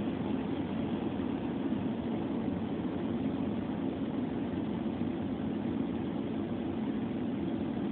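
Steady road and engine noise heard from inside a moving car's cabin, tyres running on a wet, slushy road.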